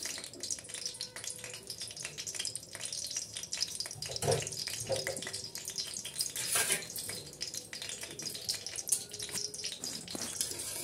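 Ghee sizzling and crackling softly as it melts and heats in a kadhai, with a few brief louder noises around the middle. A spatula stirs it near the end.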